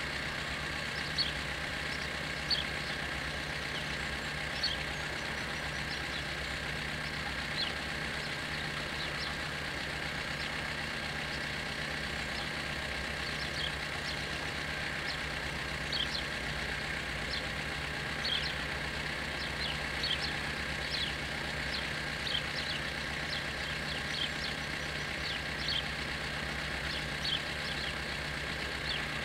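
Level-crossing warning bells ringing continuously while the barriers are closed, a steady unbroken ringing tone. Short bird chirps come in here and there over it.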